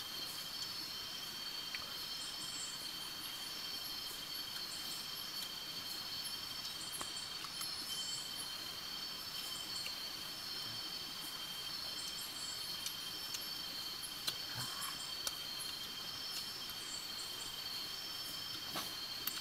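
A steady chorus of insects chirping and trilling, holding several high unbroken tones, with short repeated chirps above them. A few faint clicks come in the second half.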